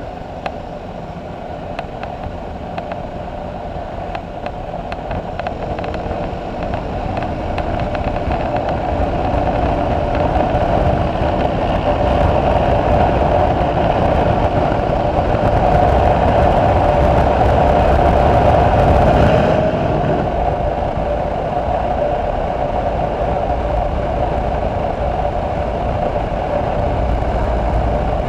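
Single-cylinder motorcycle engine running at road speed, with wind rushing over a helmet-mounted microphone. The sound grows steadily louder as the bike picks up speed until about two-thirds of the way through, then eases off suddenly and holds steady.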